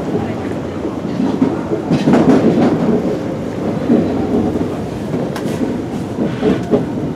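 Cabin running noise of an Osaka Municipal Subway 20 series train: a steady rumble of wheels on the rails, swelling louder about two seconds in, as the train runs into a station.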